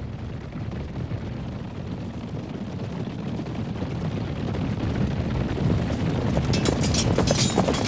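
Battle sound effects: a low rumbling din that slowly swells, with a fast irregular clatter joining about six seconds in.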